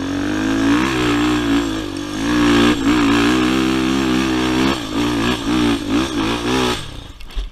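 Honda 400EX quad's single-cylinder four-stroke engine revving hard under load, its pitch rising and dipping again and again as the throttle is worked. The engine sound falls away near the end.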